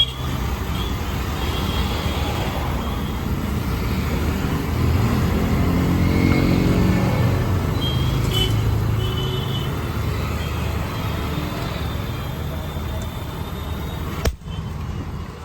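Steady low rumble of motor-vehicle engines, like road traffic, swelling for a few seconds midway and broken by a sudden cut near the end.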